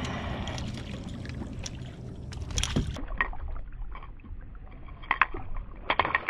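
Water splashing and sloshing as a landing net is dipped in and a hooked speckled trout thrashes at the surface, with irregular sharp splashes, the busiest near the end.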